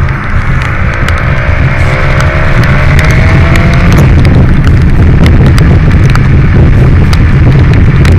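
BMW S1000 XR's inline-four engine pulling under acceleration, its pitch rising over the first four seconds and then running steadily at speed, under heavy wind rush on the helmet microphone. Scattered sharp ticks of rain hit the microphone.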